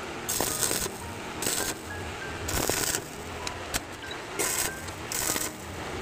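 Stick (arc) welder crackling in about five or six short bursts, roughly a second apart, as the electrode strikes and tack-welds a steel rod onto a steel strip.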